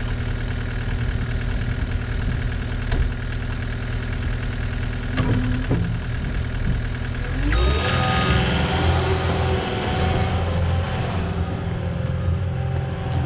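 Caterpillar 259D compact track loader's diesel engine idling steadily, with a few knocks about five seconds in. At about seven and a half seconds it revs up and holds a higher speed as the machine drives off, with a high whine and the noise of its tracks on gravel.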